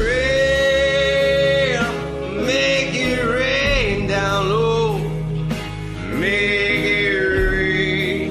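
A song: a singer holding long notes, with a second held phrase near the end, over steady band backing.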